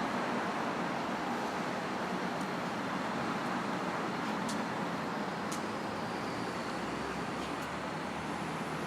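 Steady city street traffic noise: an even rumble and hiss of passing vehicles, with two faint ticks near the middle.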